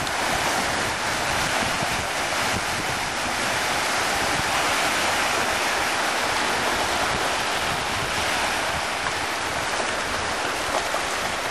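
Small wind-driven waves breaking and washing on a lake shore, a steady rush of water, with wind buffeting the microphone.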